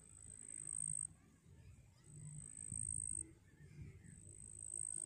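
An insect's thin, very high-pitched buzzing call, in three steady phrases about a second long separated by short pauses, over a faint low rumble.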